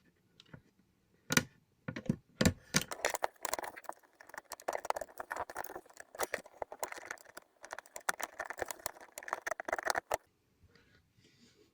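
Small, rapid clicks and rattles of wiring being worked by hand, connecting and looping 12-volt wires and connectors. A couple of single clicks come first, then a dense run of clicking that stops suddenly about ten seconds in.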